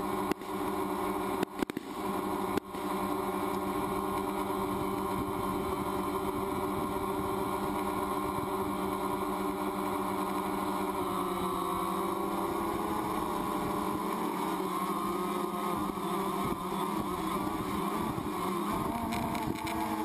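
Drone's propellers and motors whining steadily, the pitch shifting in the middle and again near the end. The sound cuts out briefly a few times in the first three seconds.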